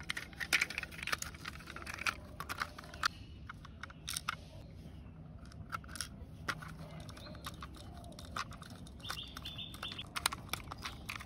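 Toy fire truck parts clicking, tapping and knocking in the hands as they are fitted together, many short sharp clicks. About nine seconds in, a bird chirps a quick run of high, evenly spaced notes.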